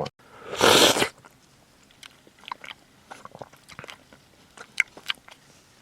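A person eating a Royal Oreo Blizzard, soft-serve ice cream with Oreo cookie pieces: one short loud rush of noise about half a second in, then soft wet clicks and smacks of chewing.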